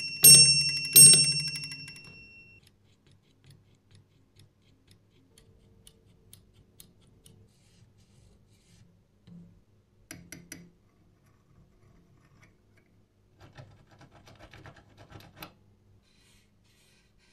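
Bell of an early-1900s electric door bell struck twice by its hammer about a second apart, each strike ringing out and fading over about two seconds. Later come faint clicks and rattles from its metal parts being handled.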